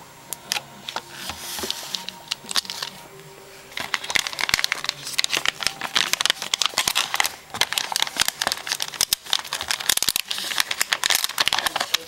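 Packaging wrap inside a keyboard box crinkling as it is handled: a few light crackles at first, then from about four seconds in, dense continuous crinkling and rustling.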